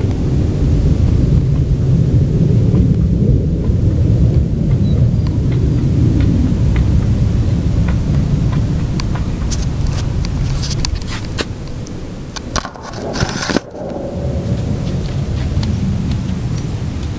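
A loud, deep, steady rumbling drone from an unseen source in the open sky. About ten seconds in, a run of clicks and a rustling burst of camera-handling noise breaks over it, and then the rumble goes on a little softer.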